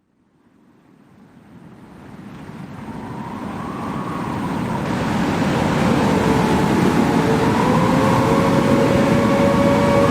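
Simulated tornado roar: a deep rumbling wind noise fading in from silence and building to a loud, steady level over about six seconds. From about halfway, a steady, slightly wavering siren-like tone sounds over it.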